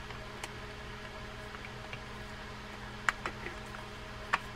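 A few faint clicks of small parts in a Penn Spinfisher 4400SS spinning reel being worked by hand as the gear assembly is pulled up to clear a shoulder, the clearest about three seconds in and near the end, over a steady low hum.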